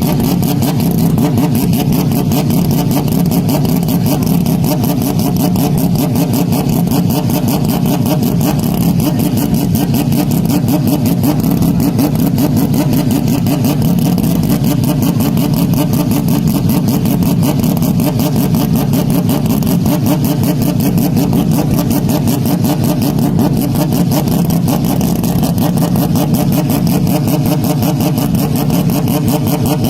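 Porsche 911 RSR racing engine running steadily without audible rises or falls in pitch, heavily bass-boosted and distorted into a dense, flat-level roar.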